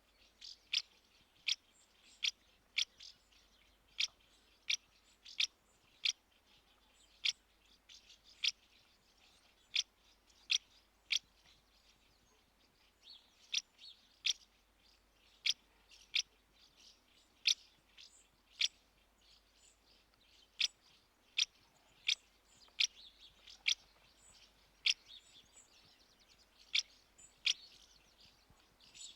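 House martins calling: short, sharp chirps repeated irregularly, about one or two a second, with faint twittering between some of them.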